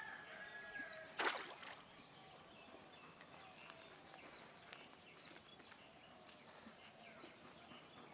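A rooster crowing, its call ending about a second in, then one brief sharp crack or clatter, the loudest sound here. After that, faint bird chirps and small ticks.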